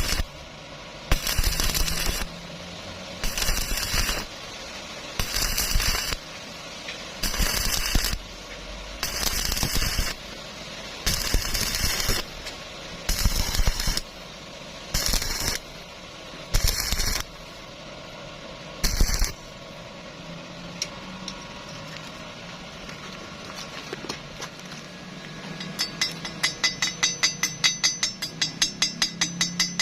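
Electric arc welding crackling in short bursts of about a second each, roughly every two seconds, as a run of tack welds. Near the end comes a quick series of sharp metallic taps, several a second.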